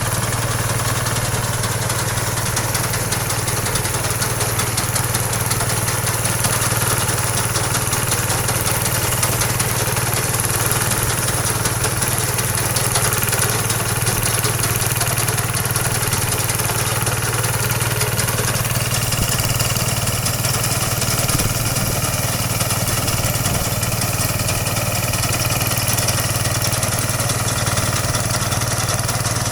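Inari 7.0F combine harvester running steadily while harvesting and threshing rice: an even engine hum with a steady hiss above it, holding at one level throughout.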